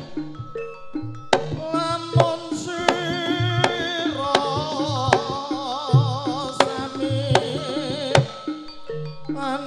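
Live jaranan ensemble music: hand drums with frequent sharp strikes under a long, wavering melody line with heavy vibrato.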